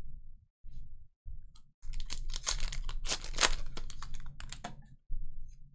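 Foil wrapper of a Pokémon Chilling Reign booster pack crackling and crinkling as it is torn open, from about two seconds in until near five seconds.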